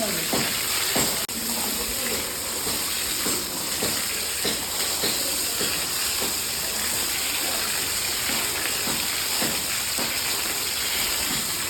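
Water spraying steadily onto a cow being washed, a continuous hiss of spray and splashing.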